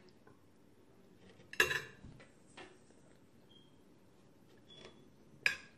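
Cutlery clinking against a dish a few times during a meal, with two sharper ringing clinks about one and a half seconds in and near the end.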